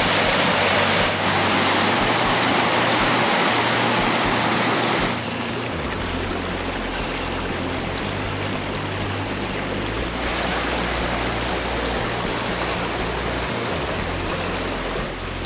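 Mountain creek water rushing over rocks, a steady full rush that is loudest for the first five seconds and then a little softer.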